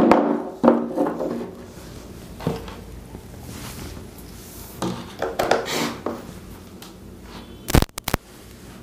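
Knocks and rustles of a fan motor, hammer and wires being handled on a wooden bench, then a few sharp clicks of a wall-board switch near the end as the series test lamp is switched on.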